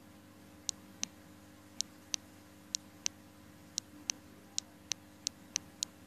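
About a dozen sharp clicks at irregular spacing, often in quick pairs: Tropheus cichlids biting at food tablets stuck to the aquarium glass. A faint steady hum runs underneath.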